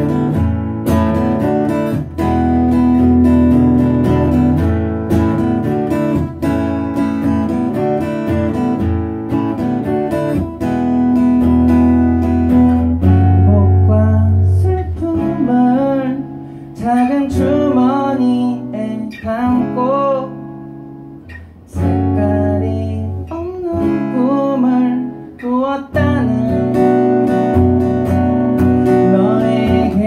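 Acoustic guitar strummed and picked in a live song performance, with a man's singing voice over it in parts; the playing softens briefly about two-thirds through before the chords return.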